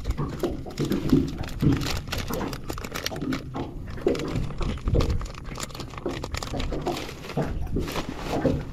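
Close handling noise from fishing lures being sorted through to change colour: irregular rustling with many sharp clicks.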